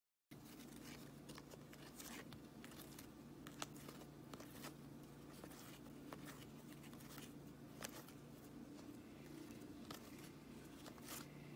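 Faint, scattered clicks and flicks of cardboard trading cards being slid one behind another by hand while sorting through a pack, over a faint low steady hum.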